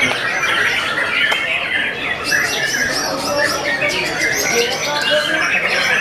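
Many white-rumped shamas singing at once: a dense, loud tangle of overlapping whistled phrases and chatter, with rapid clicking trills joining about two seconds in.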